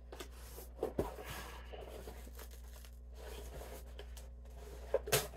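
Quiet handling of packaging with faint tearing and rustling as a box is worked open, with a small click about a second in and a couple of sharp knocks near the end.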